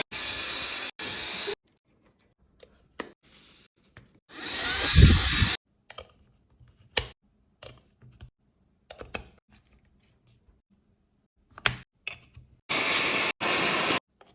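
Small cordless blower-vacuum motor switched on and off in short runs. It stops about a second and a half in, spins up with a rising whine about four seconds in and runs for about a second with a low rumble, then gives two short runs near the end. Clicks and handling noises come between the runs.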